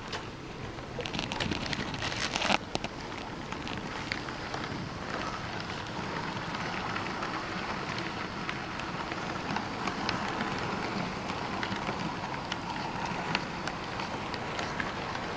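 Model train running on layout track: a steady rattling rolling noise with scattered clicks, the clicks densest and loudest between one and two and a half seconds in.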